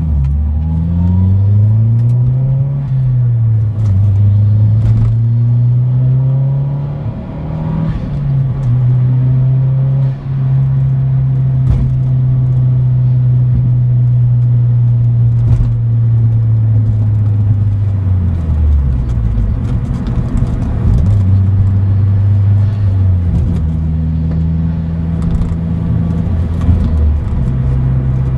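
Mazdaspeed6's turbocharged 2.3-litre four-cylinder through an ETS cat-back exhaust, heard from inside the cabin while driving: the engine note climbs through the gears with a shift between, holds a steady drone at cruise for a long stretch, drops as the car slows, then pulls up again near the end.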